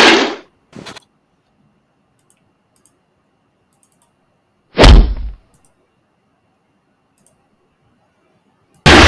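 Stock sound effects played back from an editing timeline: a sudden heavy impact hit about five seconds in that dies away within half a second, and another loud hit starting near the end, with silence between.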